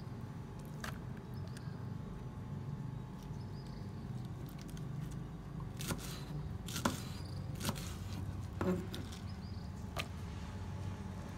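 Kitchen knife knocking on a bamboo cutting board as spinach leaves are sliced: one knock near the start, then five more about a second apart in the second half, over a steady low hum.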